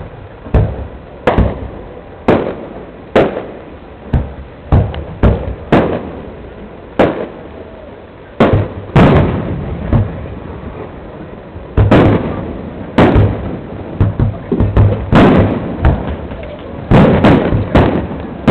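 Fireworks shells bursting one after another, sharp bangs each trailing off in a rumble, coming about once a second and crowding closer together near the end.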